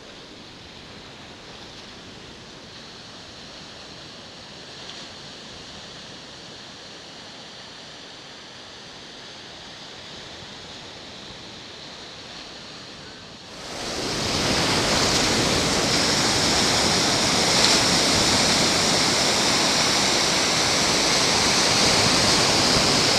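Ocean surf breaking and washing on a beach, a steady rush of noise. About thirteen seconds in it suddenly becomes much louder and fuller.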